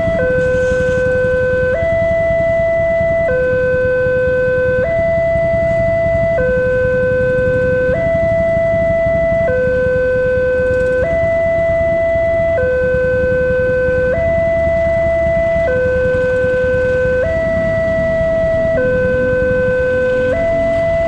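Railway level-crossing warning siren sounding a loud, steady two-tone hi-lo call, switching pitch about every one and a half seconds, over a low rumble of road noise.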